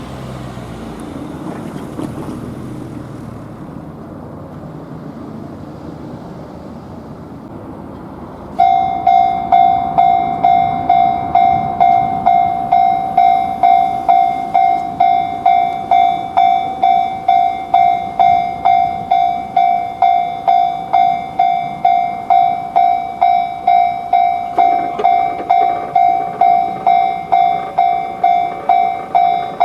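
Japanese railroad level-crossing warning bell, the 'kan-kan' alarm, starting suddenly about a third of the way in over low background noise and then ringing steadily at about two strikes a second, each strike dying away quickly.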